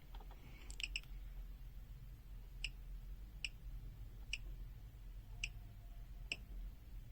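Faint, sharp clicks, about seven of them spaced roughly a second apart, from a voltage control being turned step by step as the supply voltage to the multimeter is brought back up.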